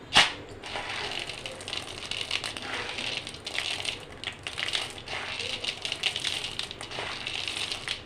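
A sharp knock about a quarter second in, then continuous dry rattling and crackling full of small clicks, as small hard food pieces are handled and moved about.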